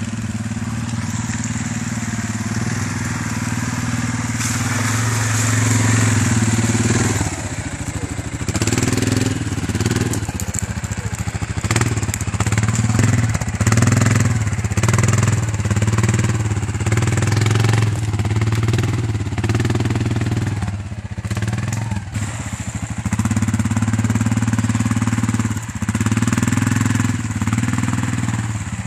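Quad bike (ATV) engine working through deep mud and water. It runs steadily at first, then revs rise and fall repeatedly from about a quarter of the way in as the wheels churn for grip.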